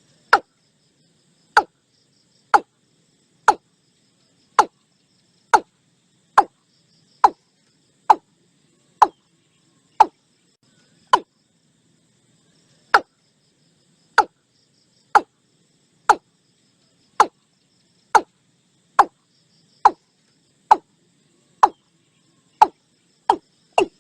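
Watercock calling: a steady series of short, sharp 'kok' notes, each dropping quickly in pitch, about one a second, with a pause of about two seconds near the middle.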